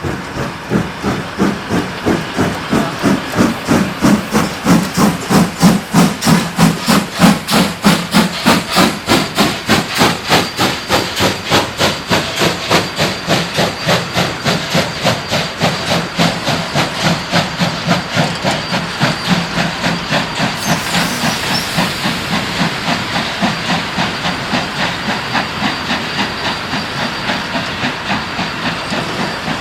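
WWII German Kriegslok steam locomotive working under steam, its exhaust chuffing in a fast, even rhythm of beats with a steady hiss of steam. The beats are loudest a few seconds in and ease slightly later.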